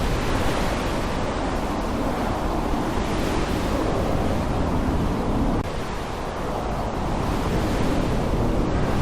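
Rainstorm ambience: heavy rain falling steadily with a low rumble underneath, easing slightly for a moment a little past halfway.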